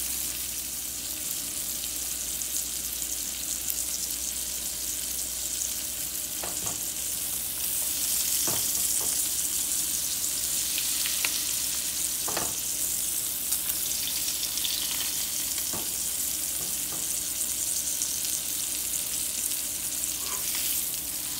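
Ahi tuna steaks searing in butter in a hot cast-iron skillet: a steady frying sizzle with a few scattered sharp pops.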